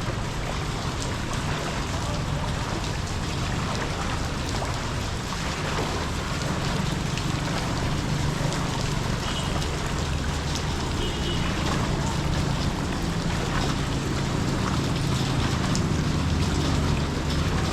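Floodwater in a street running and sloshing in a steady wash of noise, with a vehicle engine droning low underneath that grows a little stronger in the second half.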